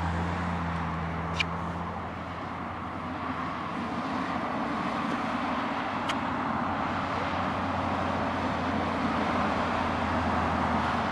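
A motor vehicle running nearby: a steady low engine hum under a steady rushing noise, with two faint clicks.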